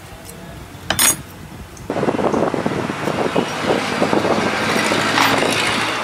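Workshop and street noise: a sharp metallic clink about a second in, then from about two seconds a louder, steady rushing noise full of small clicks and rattles, with road traffic in it.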